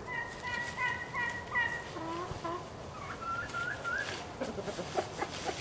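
Backyard chickens calling: a run of short, high-pitched repeated notes, a few rising notes about three seconds in, then low clucking near the end.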